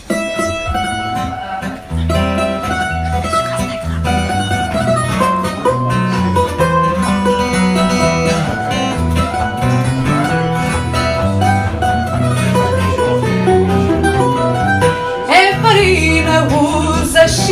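Portuguese guitar playing a bright plucked melody over a classical guitar's bass line: the instrumental introduction to a fado. A woman's singing voice comes in near the end.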